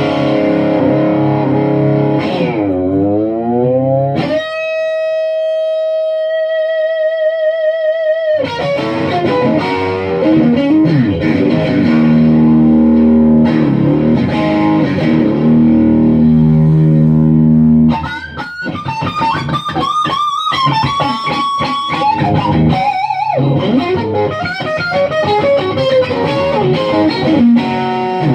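Custom one-piece swamp-ash electric guitar played through an amplifier: chords, a pitch dip down and back up, a long held note with wide vibrato, then single-note lines.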